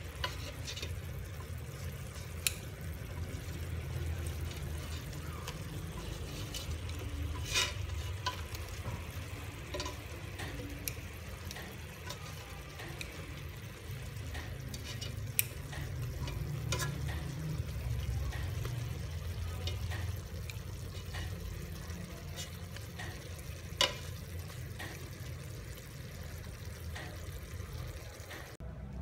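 Chopsticks stirring and turning cooked chicken pieces in a metal pot, with a few sharp clicks of the chopsticks against the pot, over a steady low rumble.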